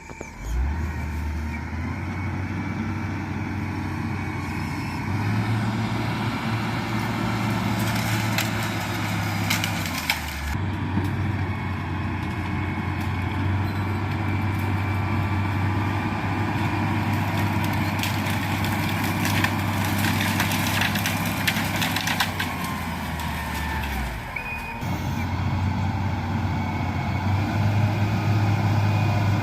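Motor grader's diesel engine running under working load, its pitch stepping up and down several times, with stretches of mechanical rattling about eight and twenty seconds in.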